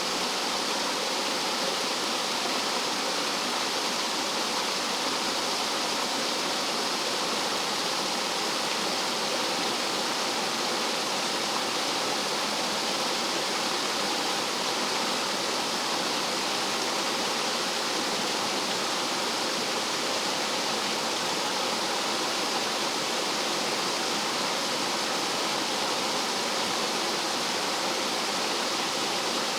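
Rough mountain-stream water rushing and cascading over rocks like a small waterfall: a steady, unbroken rush of white water.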